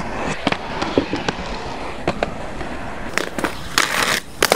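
Small skate wheels rolling over concrete, a steady rumbling hiss broken by irregular sharp clacks and knocks, busiest near the end.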